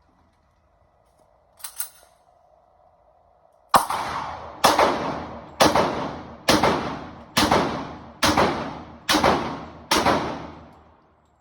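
Eight gunshots from one firearm, fired steadily at about one shot a second, each sharp crack followed by a short echoing tail, after a brief click about two seconds in.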